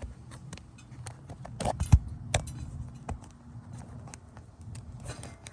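Metal clicks and knocks from a brake caliper piston compression tool being fitted and worked against the brake caliper, with one sharper knock about two seconds in and a run of clicks near the end.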